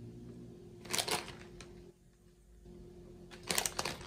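Plastic spoon and container handled while serving grated cheese: two short bursts of crackly clicking and rustling, about a second in and again near the end, over a faint steady hum.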